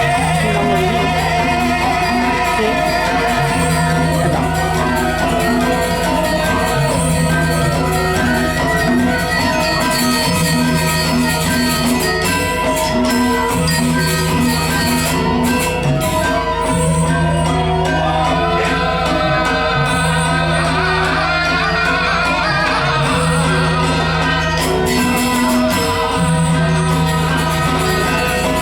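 Balinese gamelan playing dance music: bright metal-keyed instruments ring over long held low notes that change every two to three seconds.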